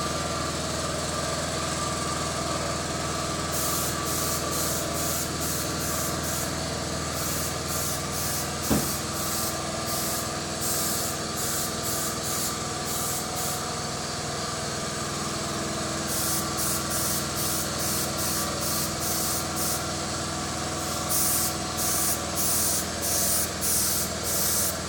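Shop air compressor running with a steady hum, overlaid from a few seconds in by the short, repeated hisses of a detail spray gun laying down paint, its trigger pulled in quick bursts of about two a second in several stretches. A single sharp knock sounds once partway through.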